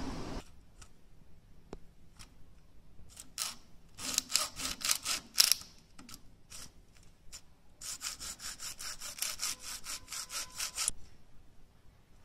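Plastic label wrapper of a Xiaomi phone battery pouch being scraped and peeled off by hand: two runs of quick, even scraping strokes, about five a second, a short run about four seconds in and a longer one from about eight to eleven seconds.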